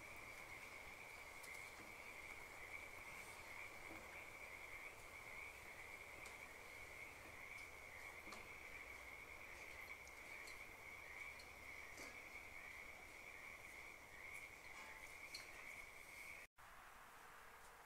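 Near silence with a faint, steady, high-pitched whine and a few faint ticks. The whine cuts off suddenly near the end.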